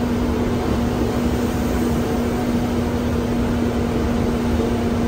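Steady running noise inside the cabin of a moving air-conditioned bus: engine and road rumble with a constant low hum.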